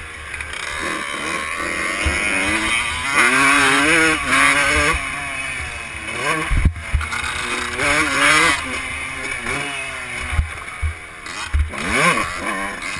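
Dirt bike engine revving up and dropping back again and again as it is ridden around a motocross track, with wind rushing over the helmet-mounted microphone. A sharp thump about halfway through.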